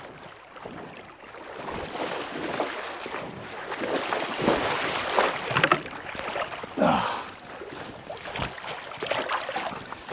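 River water lapping and splashing against a gravel bank close by, in irregular slaps, with a brief falling sound about seven seconds in.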